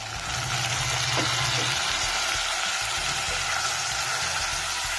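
Chopped tomatoes dropping into hot oil with browned ginger, garlic and onion: a loud sizzle that swells as they go in and holds steady, with a wooden spatula stirring them through.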